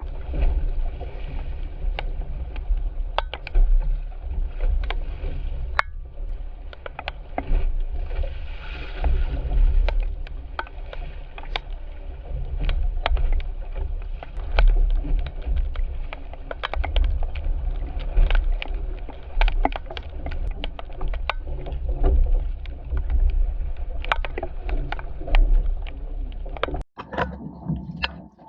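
A boat running on open water: a loud, steady low rumble with frequent sharp knocks throughout.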